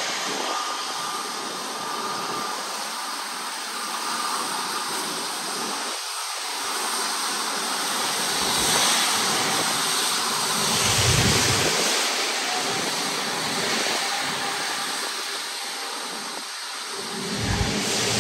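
Jet airliner engine noise: a steady rushing sound that swells a little around the middle, with a faint high whine in the first few seconds.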